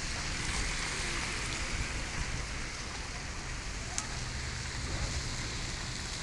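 Steady hiss of light rain falling on a wet street, with a faint low hum in the second half and a single sharp tick about four seconds in.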